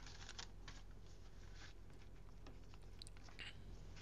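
Faint rustling and light taps of folded origami paper being handled and pressed down on a cutting mat while a glued paper tail is stuck onto the body.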